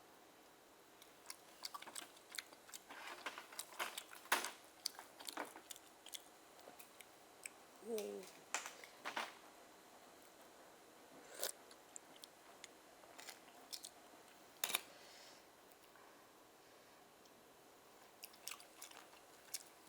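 Close-up mouth sounds of someone eating steamed oysters: scattered wet smacks and clicks of chewing, with a short hummed sound about eight seconds in and a brief pause a few seconds before the end.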